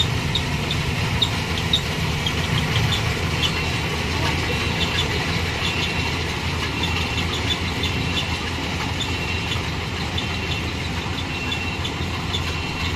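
Combine harvester engine running steadily, with short high squeaks repeating every second or so.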